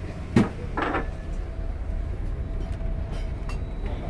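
A door thumps once about half a second in, followed by a short rattle, over the steady low drone of the ship's engines.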